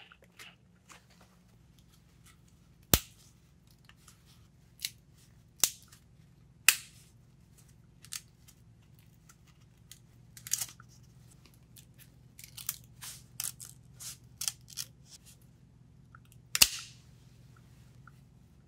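Sharp snaps and cracks from thin fiberglass skins being flexed and peeled off 3D-printed molds, about a dozen spread out, with a quicker run of softer crackles between about twelve and fifteen seconds in. A faint steady low hum runs underneath.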